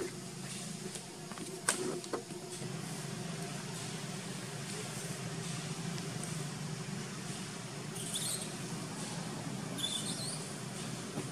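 Outdoor ambience with a steady low hum, two short knocks about two seconds in, and two brief high squeaky calls near the end.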